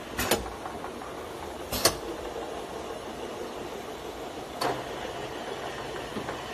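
Automatic inline liquid filling machine running with a steady mechanical hum from its conveyor, broken by a few sharp clacks from the mechanism. The loudest clacks come as a double clack just under two seconds in.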